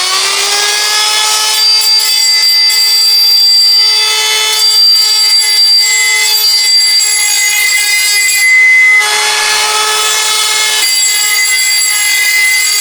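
Handheld power grinder running flat out with a steady high whine, throwing debris as it grinds metal out of a shaft housing, with the pitch and sound roughening briefly twice as it bites harder.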